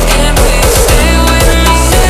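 Loud background music with heavy bass and a driving beat.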